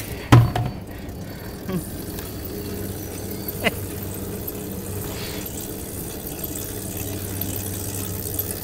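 Electric shopping cart's drive motor running with a steady low hum. A loud thump comes about half a second in, and a short falling squeak comes a few seconds later.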